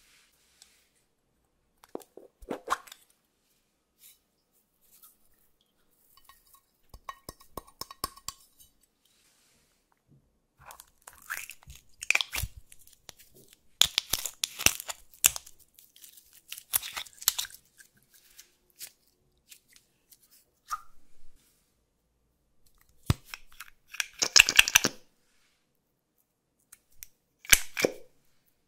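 Hands opening and handling small plastic makeup containers and glitter pots: scattered crackles, clicks and rustles in bursts of a second or two with quiet gaps, busiest in the middle, with the loudest burst about three-quarters through.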